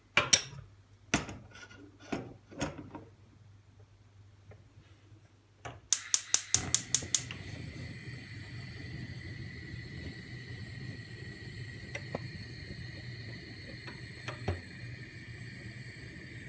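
A few separate clicks and knocks, then about six seconds in a gas stove's igniter clicking rapidly, about eight clicks in a second, until the burner lights and gives a steady hiss with a thin whine and a low hum, heating the pan to melt butter.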